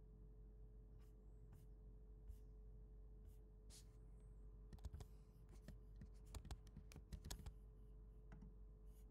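Faint computer keyboard keystrokes and mouse clicks, scattered at first and coming thicker in the middle, over a faint steady hum.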